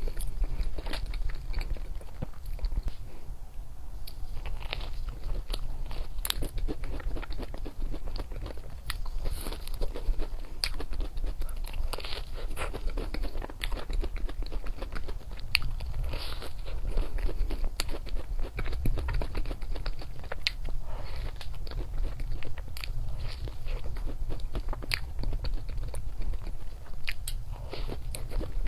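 Close-miked eating of chocolates: repeated bites and crunches with chewing and mouth clicks.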